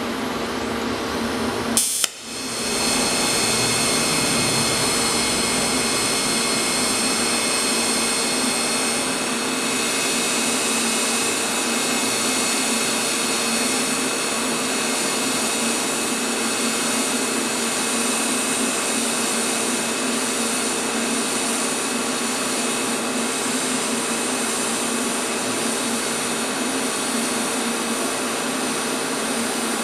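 TIG welding arc running steadily: an even hiss with a high, steady whine over it. It drops out briefly about two seconds in and then carries on unbroken.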